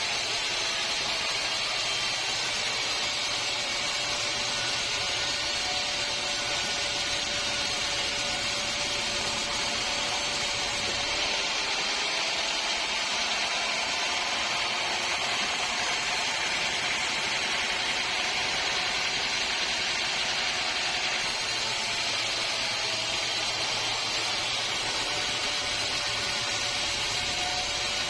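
Sawmill machinery running with an even, continuous noise and a faint steady hum.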